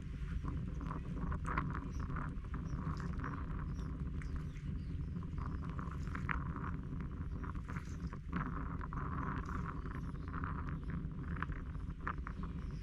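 Birds chirping in many short, scattered calls over a steady low rumble of coastal ambience.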